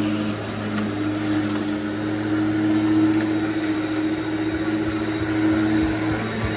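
Lawn mower engine running steadily at an even speed.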